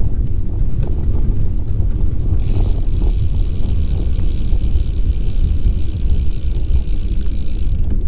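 Wind rumbling on the microphone of a camera riding along a paved bike trail, with tyre noise beneath. A faint, high, steady whine joins about two and a half seconds in and stops near the end.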